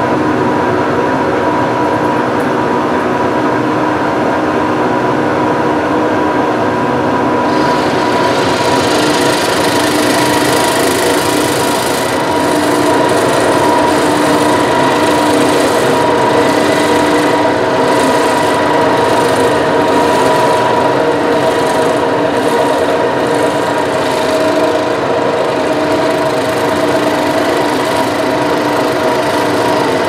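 Monarch 10EE metal lathe running with a steady whine while a knurling tool presses into the rim of a spinning cast aluminium knob. About seven seconds in, a hiss joins as the knurl wheels bite and roll the grip pattern into the metal.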